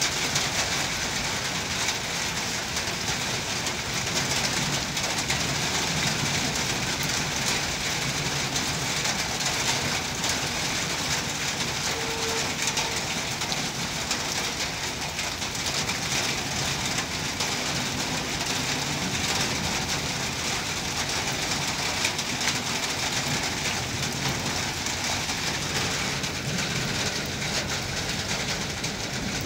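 Steady rain falling, with a passenger train's coaches rolling past on the tracks.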